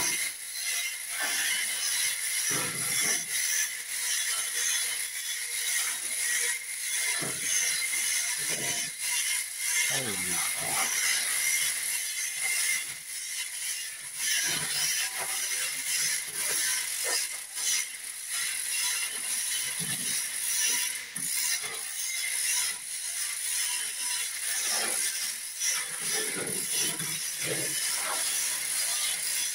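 Manual chain hoists being hand-pulled to lift a suspended load: quick ratcheting clicks and rattling chain, over a steady high-pitched background hum.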